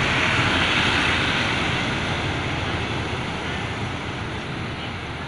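Diesel railcar express train running along the platform and drawing away: a steady rushing of wheels on rail that fades gradually as the train recedes.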